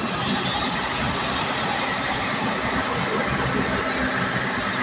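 Steady road noise from a vehicle cruising at highway speed, heard from inside the cabin: tyre and wind noise with a low engine hum underneath.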